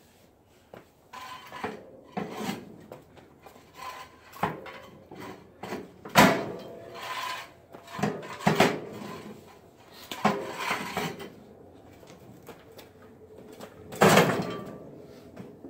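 Steel Arctic V-plow blade clanking and scraping as it is levered up with an ice scraper and shifted onto wooden caster dollies: a run of irregular knocks and scrapes, the heaviest about six seconds in and again near the end.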